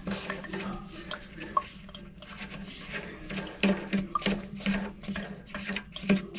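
Irregular small clinks, knocks and scraping of plastic and porcelain toilet tank parts being handled and fitted during a fill valve replacement, over a steady low hum.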